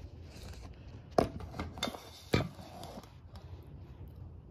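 Handling noise of a phone being set down and propped in place: two sharp knocks about a second and about two and a half seconds in, with smaller clicks and rustling between them.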